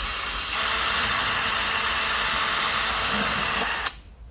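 Electric drill spinning a round file in a tyre puncture, reaming the hole larger for a plug repair. It is a steady whirring motor that cuts off with a short click about four seconds in.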